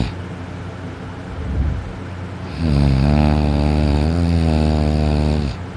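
A sleeping man snoring loudly. A quieter breath comes first, then about two and a half seconds in one long snore that lasts about three seconds and cuts off shortly before the end.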